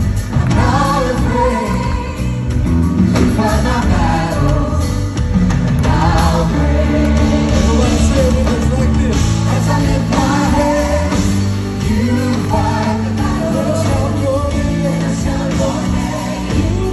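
Live gospel worship music: a band with drums, electric guitar and keyboard plays loud and amplified behind several singers on microphones, singing a steady praise song.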